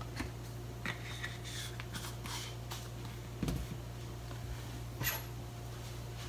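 Quiet room tone with a low steady hum, broken by a few faint clicks and knocks of kitchen things being set down and picked up on a counter: a dull knock about three and a half seconds in and a light clink near five seconds.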